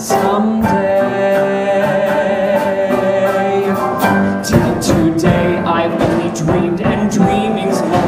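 Live accompaniment of a musical-theatre song, with a steady beat. The low end fills in about halfway through.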